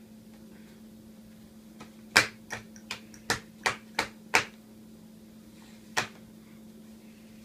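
Sharp plastic clacks from a kid's meal noise-maker toy: about seven in quick, even succession, then one more a couple of seconds later.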